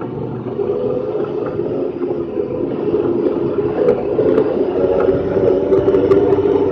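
Honda Pioneer 1000-5 side-by-side's engine running steadily as it drives over grass, heard from inside the cab and gradually getting louder, with a few light clicks.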